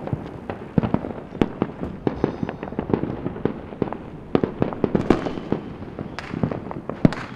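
Many fireworks and firecrackers going off at once: a dense, irregular stream of overlapping pops and bangs, several a second, with no pause.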